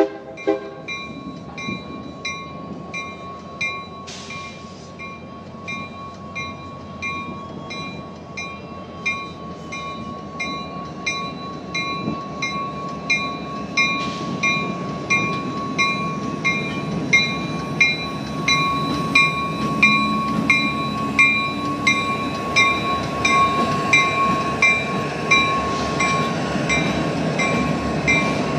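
Railroad warning bell ringing steadily, about two strikes a second, over the rumble of a train that grows louder as it draws near. A steady high-pitched tone runs underneath.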